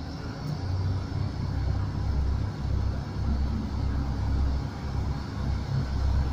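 Irish Rail 29000 Class diesel multiple unit moving slowly along the platform, its underfloor diesel engines giving a steady low rumble that grows a little louder about a second in as it draws closer.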